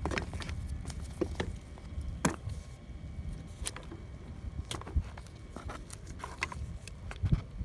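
Irregular light clicks and knocks of the plastic housing parts of a disassembled DD15 centrifugal crankcase breather being handled and set down, about a dozen in all, over a low steady background rumble.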